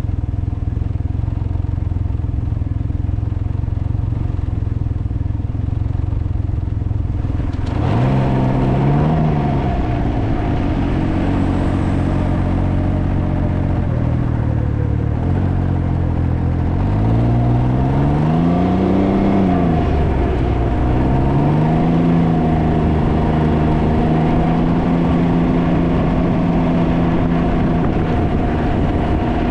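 Wind noise buffeting the microphone on a moving Can-Am Ryker three-wheeled motorcycle, with the engine underneath. About eight seconds in, the engine note comes through clearly; it rises and falls in pitch twice as it revs up and down, then holds steady.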